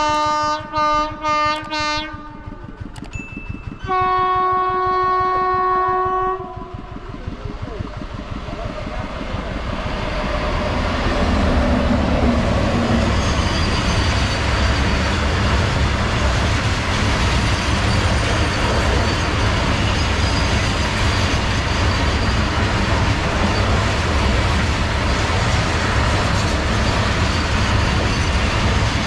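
WAG-9 electric locomotive's horn sounding several short blasts, then one long blast about four seconds in. Then the rumble and clatter of a long freight train's wagons rolling past, building over several seconds and then holding steady.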